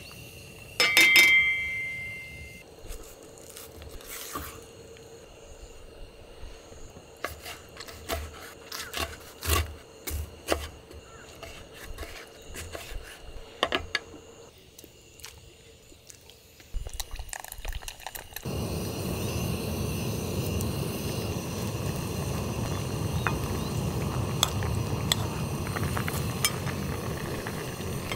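Camp cookware being handled: a metal dish or cup clinks with a bright ring about a second in, followed by scattered knocks, scrapes and clinks. Near the two-thirds mark a couple of clicks are followed by a gas camp burner lit and running with a steady rushing hiss.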